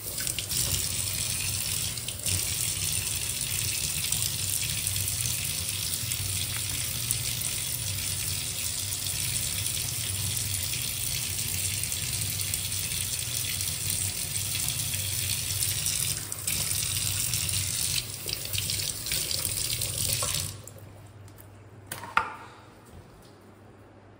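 Kitchen tap running into a steel pan held in a stainless sink, a steady rush of water that shuts off about twenty seconds in. A single short knock follows shortly before the end.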